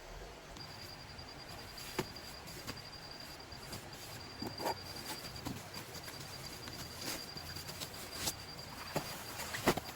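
An insect trilling steadily in a fast, even, high-pitched pulse, starting about half a second in. Scattered sharp clicks and knocks come a few times, the loudest near the end.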